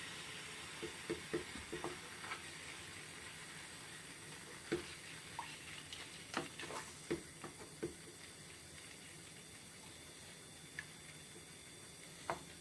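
Cream cheese, double cream and Kahlua mixture heating in a pan on low heat: a faint steady sizzle that fades slightly, with scattered light clicks.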